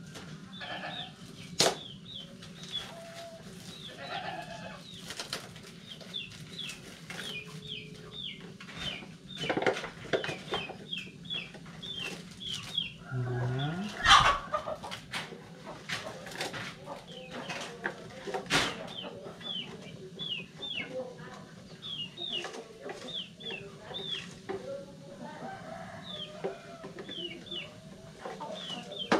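Chickens clucking, with many short high cheeps repeated all through. Scattered knocks and rustles of kitchen handling, the loudest about halfway through.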